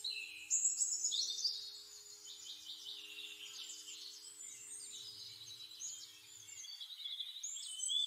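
Several birds singing together: rapid, high-pitched chirps and whistled trills overlapping throughout.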